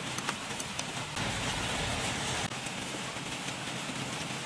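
A steady, even hiss like rain, with a few light clicks of a metal fork and spoon against the bowl in the first half-second.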